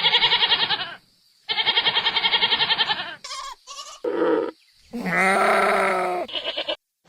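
Farm animals bleating: a run of long, quavering, pulsed bleats, a few short calls, then one longer, steadier bleat near the end.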